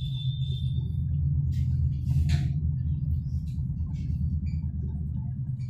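Low, steady rumble with a few light clicks, a faint short high squeak at the start and a brief hiss about two seconds in.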